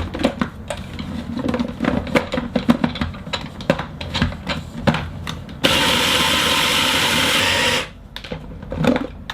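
Clicks and knocks of a food processor bowl and lid being handled, then the food processor running steadily for about two seconds, grinding chocolate biscuits and almond meal into crumbs, and stopping abruptly.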